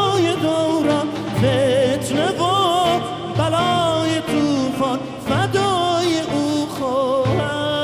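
Iranian music with singing: a melody full of wavering, ornamented turns over a low beat that comes about every two seconds.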